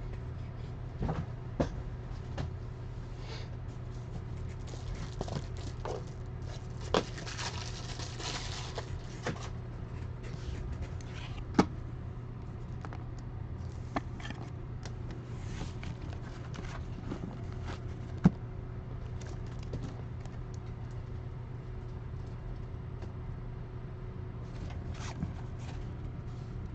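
Trading cards and rigid plastic top loaders being handled: scattered light clicks and taps, with a longer rustling scrape about seven to nine seconds in, over a steady low hum.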